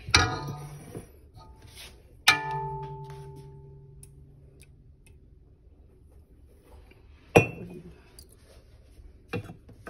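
Metal ladle clanking against a stainless steel stockpot, four knocks; the loudest, about two seconds in, leaves the pot ringing for about two seconds.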